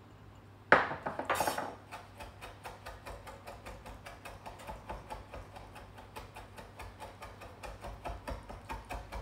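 A chef's knife chopping capers on a wooden cutting board in quick, even strokes, about five a second. A sharp knock about a second in, with some clatter just after it.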